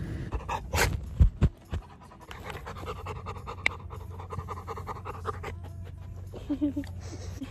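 Labrador retriever panting rapidly close by on a hot day, with a fast, even rhythm of breaths. A few sharp knocks come about a second in.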